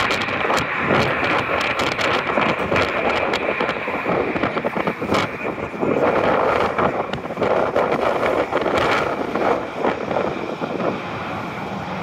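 Wind buffeting the microphone in gusts over a steady wash of road-traffic noise, loudest about halfway through.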